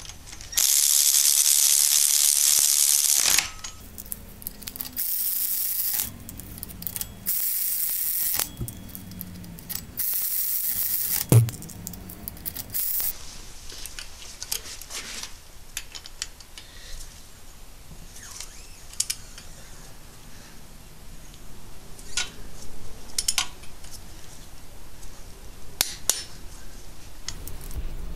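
A cordless power tool spins flywheel bolts into the crankshaft of a Subaru EJ22 engine in four loud bursts. The first runs about three seconds and the others about a second each. A sharp knock follows, then scattered metallic clinks and ratchet ticks as the bolts are tightened with a torque wrench.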